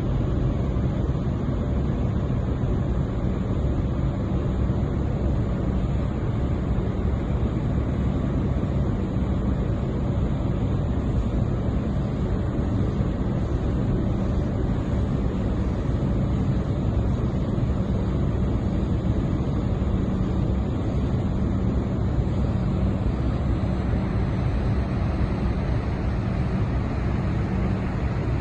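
Steady low drone of ship engines with a constant hum, mixed with wind buffeting the microphone.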